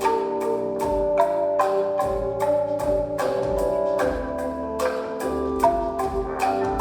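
Calung renteng playing: tuned bamboo slats struck in a steady run of notes, about three strikes a second, each note ringing briefly, over recurring deep low thuds.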